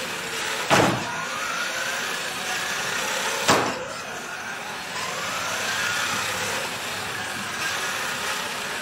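Robotic Redcat RC car's drive motor whining as it drives, its pitch rising and falling as it speeds up and slows. Two sharp knocks, one about a second in and one about three and a half seconds in.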